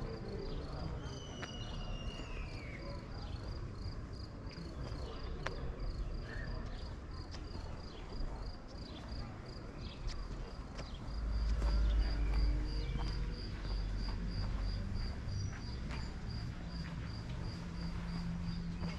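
Cricket chirping in a steady, even rhythm of short high chirps. About eleven seconds in, a low rumble swells for a couple of seconds and is the loudest sound.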